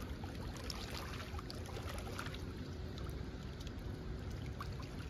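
Rhine river water trickling and washing at the bank, a steady gentle wash with small scattered drips and splashes. A faint steady hum comes in about a second in.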